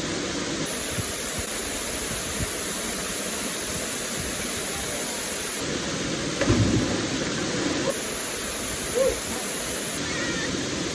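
Waterfall pouring into a pool: a steady rushing of water, with a brief louder splash-like surge about six and a half seconds in.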